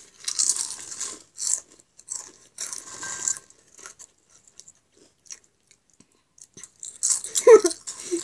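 Roast chicken crisps crunching as they are bitten and chewed quickly, in bursts of crackling through the first few seconds, then only scattered small crunches. Near the end a short burst of a girl's voice.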